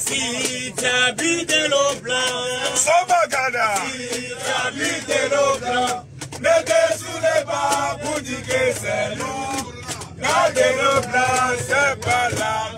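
A group of men chanting and singing together in a celebration song, with a short break about halfway through.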